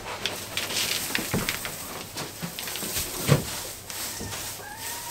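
Dry straw bedding tipped out of a bin onto a coop floor and kicked about underfoot, rustling and crackling, with a couple of dull thumps.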